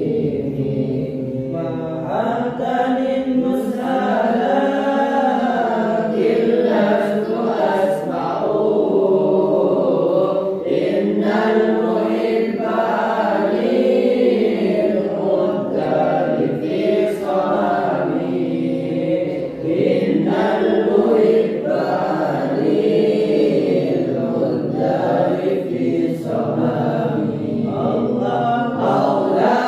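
A group of boys and men chanting sholawat, Islamic devotional praise of the Prophet, together without instruments. It is one continuous melodic chant whose pitch rises and falls throughout.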